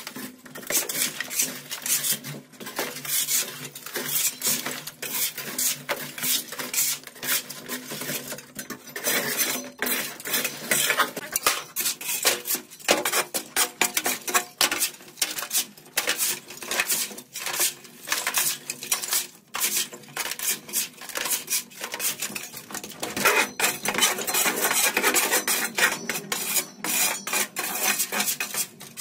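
Dense, irregular clattering and scraping: many small knocks and clicks in quick succession, with louder stretches about a third of the way in and near the end.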